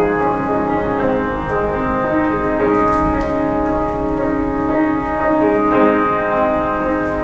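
Grand piano playing a slow piece with long held chords.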